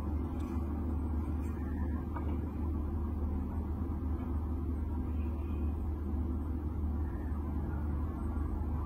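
A steady low hum or rumble, like a machine running in the background, with a few faint small ticks in the first couple of seconds.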